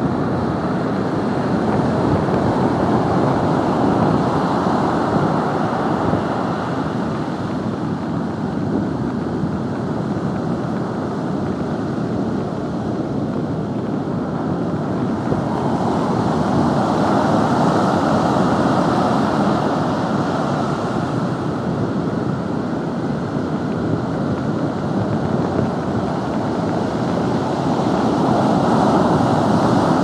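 Rough storm surf from an approaching typhoon breaking and washing up a sandy beach in a continuous rush of waves, swelling louder a little past halfway and again near the end. Wind buffets the microphone throughout.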